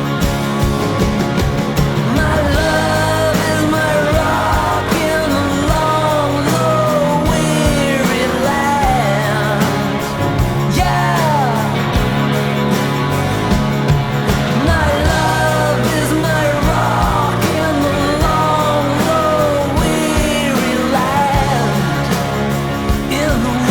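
Rock music: a band with steady bass and drums, with a sliding, wavering melody line over it from about two seconds in.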